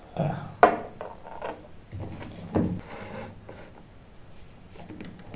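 Handling noises on a workbench: a few sharp knocks and some rubbing as objects are picked up and set down, the loudest knock about half a second in, then quieter fiddling with wires.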